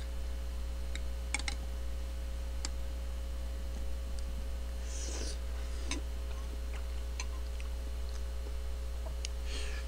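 Quiet eating: a person chewing a spoonful of curry, with a few light clicks scattered through it, over a steady low hum.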